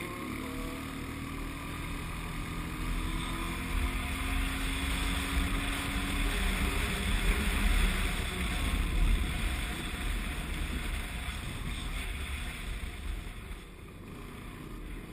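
ATV engine running under way, its note steady and creeping slightly higher for the first several seconds, with heavy wind rush on the helmet-camera microphone that grows loudest in the middle and eases near the end.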